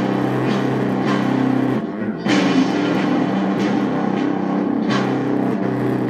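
Rock music with an electric guitar being strummed in full chords, along with drums. The sound thins out briefly about two seconds in, then comes back loud.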